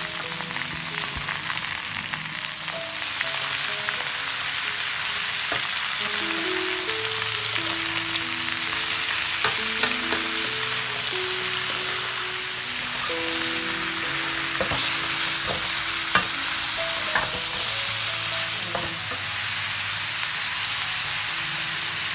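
Food frying and sizzling in a hot pan while it is stirred, with a steady hiss and scattered sharp clicks of the utensil against the pan.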